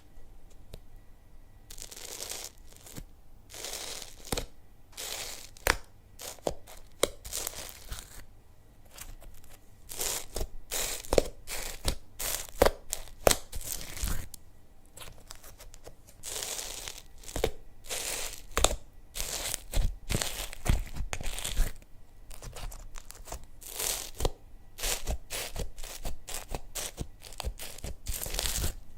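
Hands working slime: irregular squishing, crackling and popping with sharp clicks, coming in bursts.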